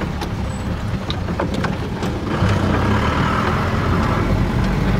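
Vehicle engine and road rumble heard from inside the cabin while driving slowly over a rough, stony dirt road, with a few small clicks and knocks. A little over two seconds in, a louder steady hiss joins the rumble.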